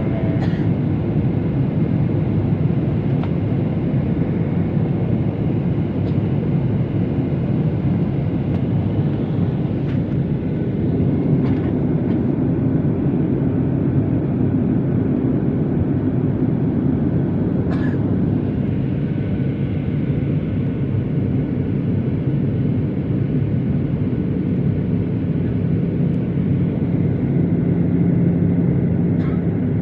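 Steady engine and airflow noise inside an airliner cabin in flight, low and even, with a few faint clicks.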